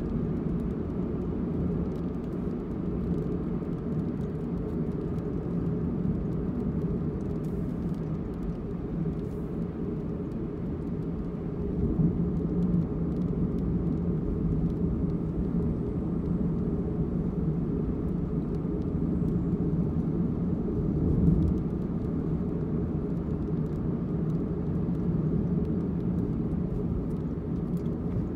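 Steady road and engine noise of a moving car, heard from inside the cabin: a low, even rumble with a hum underneath and a couple of brief swells.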